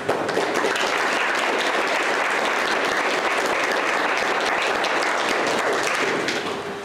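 A congregation applauding, steady clapping that dies away near the end.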